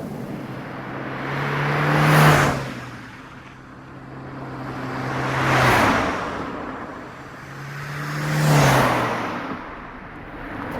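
Hybrid electric car passing by three times, about three seconds apart. Each pass swells up and fades away, with a low motor hum that drops in pitch as the car goes past.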